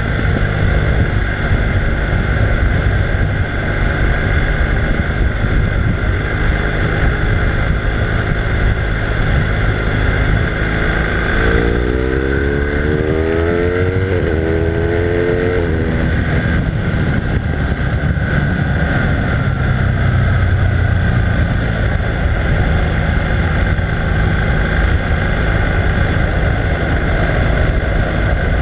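BMW R1200R LC's liquid-cooled boxer twin running at road speed under heavy wind noise. About halfway through, the engine note climbs twice in quick succession as it accelerates, then settles back to a steady cruise.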